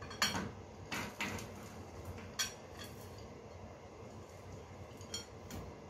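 White dishes clinking together as a plate of chopped chocolate is tipped into a mixing bowl: a handful of short, sharp clinks, the loudest near the start and about two and a half seconds in.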